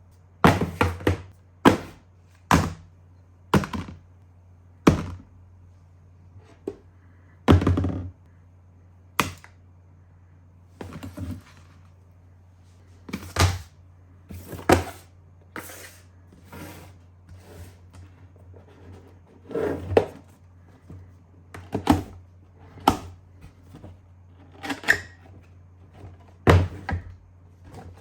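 Objects being handled and set down on a hard surface: a string of irregular sharp thunks and knocks, some in quick pairs, over a steady low hum.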